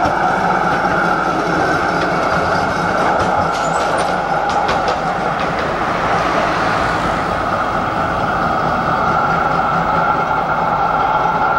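W-class tram running past on street track, with a few clicks from the wheels. About six seconds in, a car passes close with a swelling and fading rush of tyre noise.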